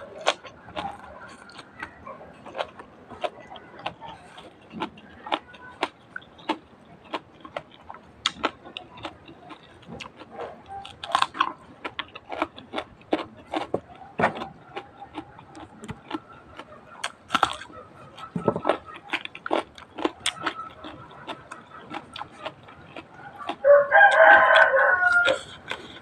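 Close-up chewing and eating sounds, with many short crunches and clicks throughout. A rooster crows loudly once, for about a second and a half, near the end.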